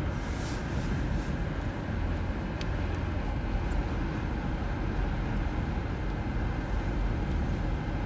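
Blizzard wind gusting around 70 mph and buffeting a car, heard from inside the cabin as a steady rushing noise with a deep low rumble.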